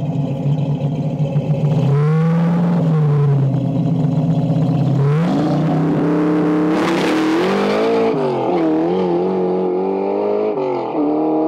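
Ford Maverick's carbureted engine running, then revved hard about five seconds in as the car launches, with a burst of tyre noise as the rear breaks loose. The engine note wavers under the wheelspin, drops sharply with an upshift near the end, then climbs again.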